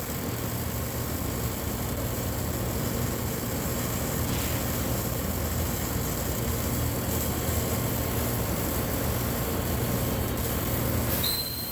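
Pulsed MIG welding arc buzzing and crackling steadily inside a confined steel vessel. Near the end the sound changes abruptly and a high steady whine comes in.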